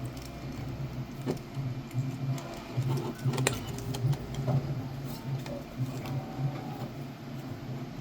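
Screws being driven into a 3D-printed PLA block, with an uneven low crunching a few times a second and scattered sharp clicks from the lock hardware. The loudest click comes about three and a half seconds in.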